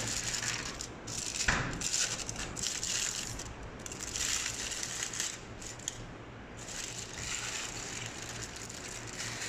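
Aluminium foil crinkling and crackling as it is handled and peeled back off a large metal food tray, in irregular bursts with a few sharp clicks.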